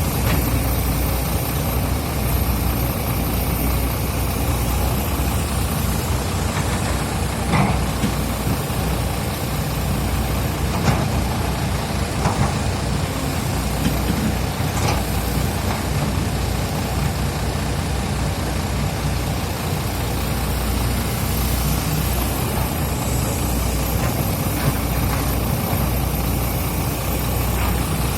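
Hydraulic excavator's diesel engine running steadily while it works, with a few short knocks or clanks from the machine in the middle stretch.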